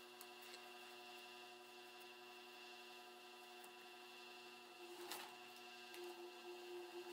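Pfaff industrial sewing machine, its motor humming faintly and steadily. There are short runs of stitching about five seconds in and again near the end, with a few light clicks early on.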